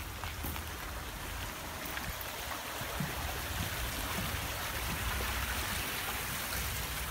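A small stream running, a steady rushing hiss of water that grows a little louder in the middle, with a low rumble underneath.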